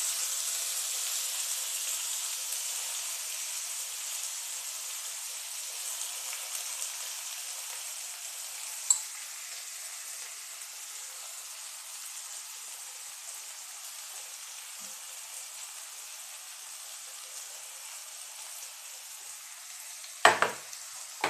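Finely chopped red onions sizzling in hot oil with cumin seeds in a nonstick kadai, the sizzle loud at first and slowly dying down. A single click about nine seconds in and a short knock near the end.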